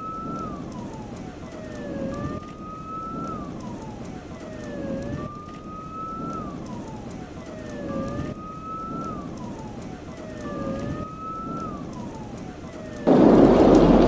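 A siren wailing in five repeated cycles, each a slow rise in pitch followed by a long fall, over a background hiss. About a second before the end, a much louder rushing noise cuts in abruptly.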